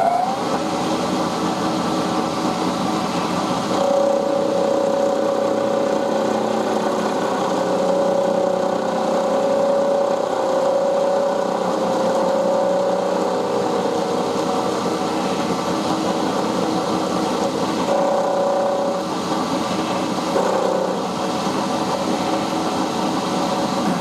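Milling machine running with an end mill cutting an aluminium block: a steady motor hum, with a higher tone that comes in about four seconds in, fades around the middle and returns briefly later as the cutter works the metal.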